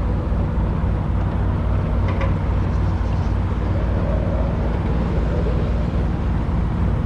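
A Shannon 28 sailboat's inboard engine running steadily under way, a low, even pulsing drone.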